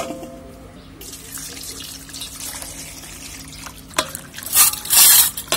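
Water running into a steel basin of cut cluster figs, then hands swishing and splashing the figs to wash out their milky sap. A sharp knock right at the start, and the loudest splashes near the end.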